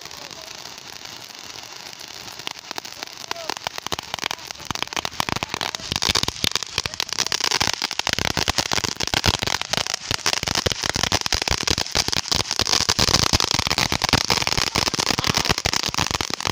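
A ground firework spraying sparks and crackling: a dense, rapid run of sharp pops that grows louder about four seconds in and thicker from about six seconds on.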